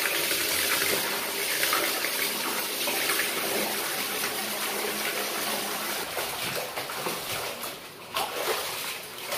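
Water running steadily from a tap, with a few light knocks and splashes in the last few seconds.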